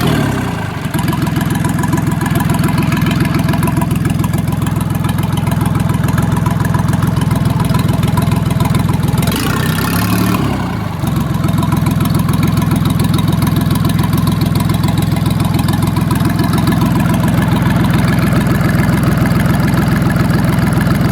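Siyang 380J-3 three-cylinder, four-stroke marine diesel engine running steadily on test. Its note dips briefly and recovers about halfway through.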